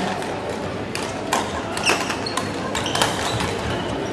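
Badminton in a sports hall: several sharp hits of rackets striking shuttlecocks, with short high squeaks of shoes on the wooden court floor, over steady hall background noise.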